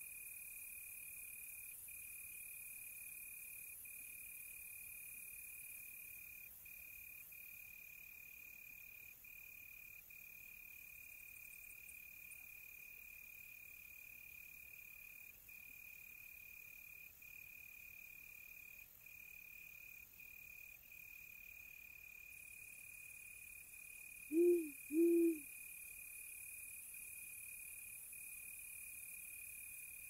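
Crickets chirping in one steady high trill with brief gaps. Near the end an owl hoots twice, two short low hoots in quick succession that stand out loudest over the crickets.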